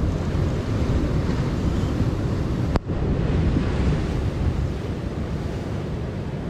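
Wind buffeting the microphone over surf washing against a rocky shore, a steady rumbling noise. A single sharp click with a brief drop in sound about three seconds in.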